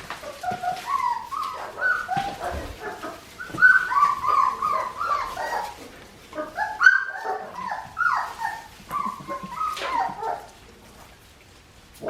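A litter of 4.5-week-old Australian Shepherd puppies whining and yipping, with many short, high calls overlapping one another. The calls thin out near the end.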